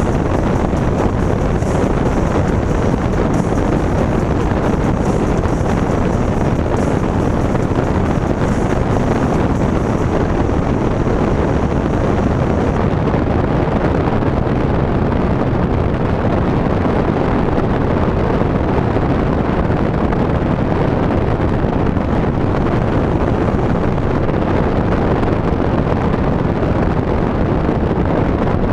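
Terrible wind noise rushing in through a passenger window left slightly open on a moving 4th-generation Ford Mustang, heard inside the cabin as a loud, steady roar.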